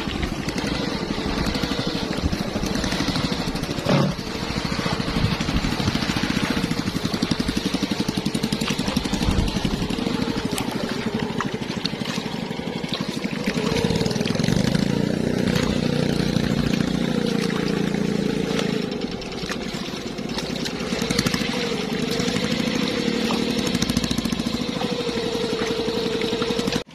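An engine running steadily, its pitch wavering a little, with a sharp knock about four seconds in.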